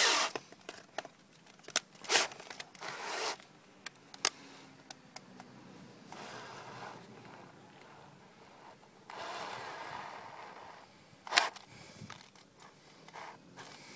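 Intermittent scraping and rubbing from handling a screwdriver and small engine parts on a workbench, with scattered clicks and a sharp knock late on.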